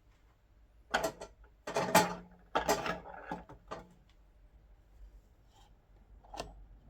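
Handle parts of a Milwaukee cordless chop saw being worked loose and taken apart by hand: three short bursts of clattering clicks of plastic and metal about a second in, then a single sharp click near the end.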